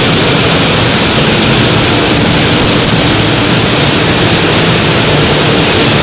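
Steady roar of a large waterfall: a loud, even rush of falling water.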